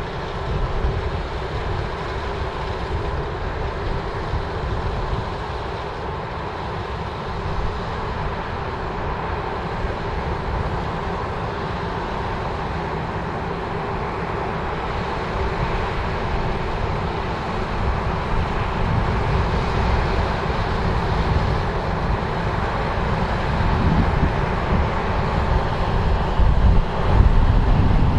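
New Holland combine harvester running steadily while harvesting barley: a constant machine drone with a faint steady whine, growing louder over the last several seconds, with some wind rumble on the microphone.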